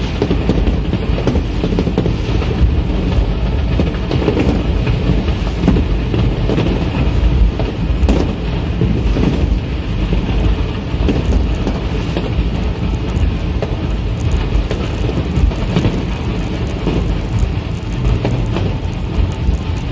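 Fireworks stock burning in a warehouse fire, crackling and popping continuously with scattered dull bangs over a heavy low rumble.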